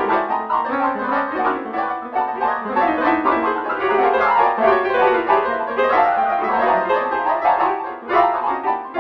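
MIDI music: synthesized piano with brass-like voices playing a busy, fast run of notes, with a brief dip just after 8 seconds.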